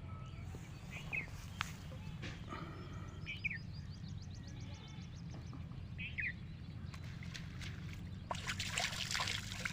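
Outdoor water's-edge ambience: a bird gives a short chirp every two to three seconds and a fast trill, over a steady low rumble. About eight seconds in, water starts splashing and trickling.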